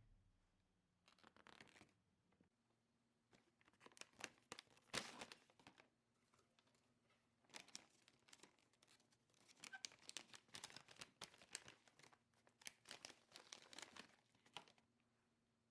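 Packaging being handled and torn open by hand, crinkling in irregular bursts, loudest about five seconds in.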